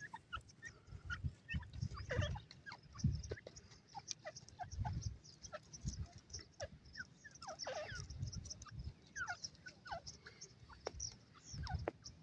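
Many short, quickly falling bird chirps, scattered irregularly and overlapping, with low rumbling thumps now and then.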